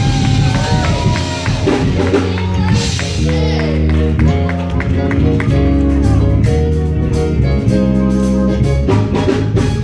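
Live gospel band playing, with bass guitar, keyboards and drums keeping a steady beat. A singer's voice glides in briefly during the first few seconds.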